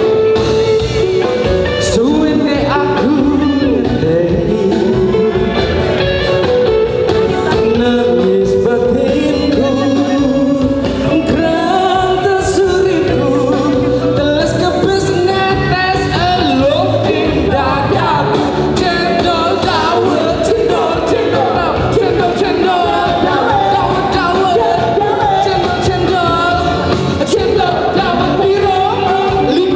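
Live band music with amplified singing through microphones and a PA: a pop song sung over keyboard, guitar and drums.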